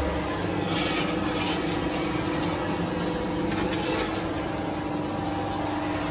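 Automatic 425-CNC tube-cutting machine running with a steady hum while its feed carriage pushes a bundle of square steel tubes toward the saw. A few faint clicks come about a second in and again around four seconds in.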